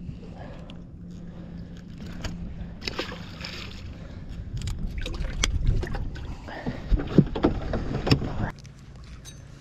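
Bass being handled and culled in a boat's livewell: water splashing, with sharp clicks and knocks from the cull tag and hatch over a steady low hum. The knocking and splashing stop about eight and a half seconds in as the livewell lid is shut.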